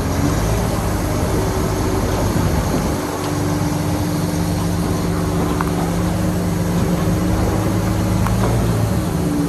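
Shantui bulldozer's diesel engine running steadily under work, its note shifting about three seconds in.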